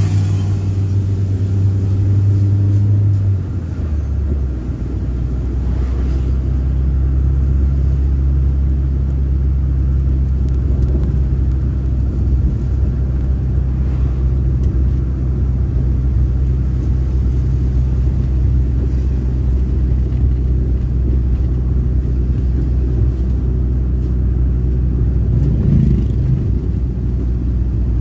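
Car engine and road noise heard inside the cabin while driving: a steady low drone that drops to a lower note about three and a half seconds in, then holds.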